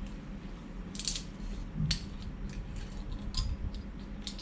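Metal twist-off cap being worked off a glass bottle of soy milk, a handful of sharp clicks and clinks spread over a few seconds.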